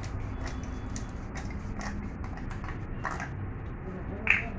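Small clicks and handling taps over a steady low background rumble, then one sharp clink near the end as a small metal hand tool is knocked against the tile floor.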